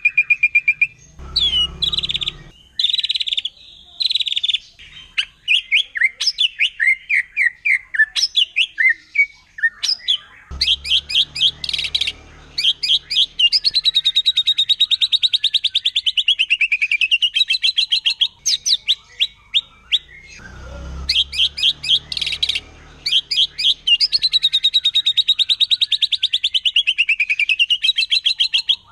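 Wild white-rumped shama singing. It opens with varied whistled phrases, then breaks into long runs of rapid repeated notes that sweep down and back up in pitch, the hard 'shooting' song.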